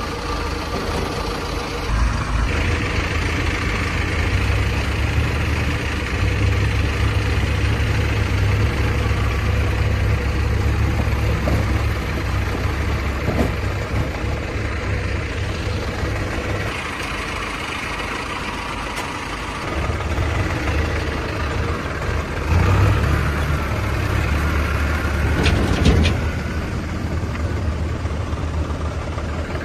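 Heavy diesel engines of a JCB 3DX backhoe loader and farm tractors running during soil loading, a deep steady drone. The engine works harder about two seconds in, eases off for a few seconds in the second half, then picks up again, with a couple of short knocks near the end.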